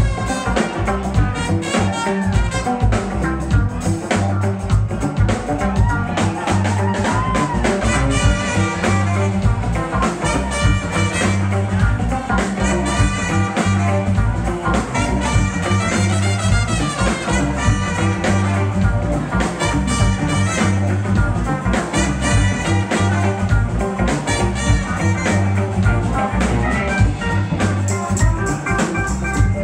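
Live funk band playing an instrumental groove, with a steady bass line under regular drum hits and guitar.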